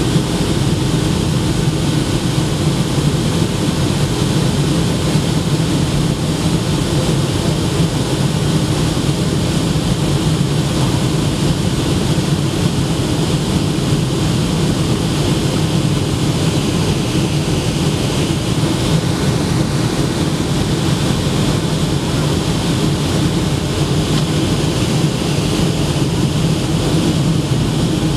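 Boeing 757 jet engine and airflow heard inside the cabin at a window seat beside the engine: a steady low drone with a rushing hiss above it, unchanging throughout.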